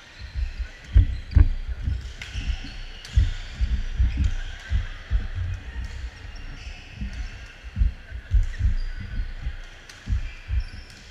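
Badminton doubles rally on a wooden gym floor: rapid, irregular low thuds of players' footsteps, with a few sharp smacks of rackets hitting the shuttlecock and faint shoe squeaks.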